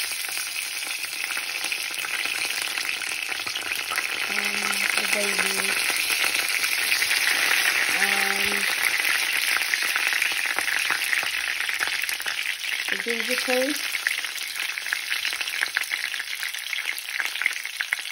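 Whole spices (cumin seeds, black seeds, cardamom pods, bay leaves and cinnamon sticks) sizzling and crackling steadily in hot oil as they temper. The crackles grow spikier near the end as grated garlic-ginger paste goes into the pan.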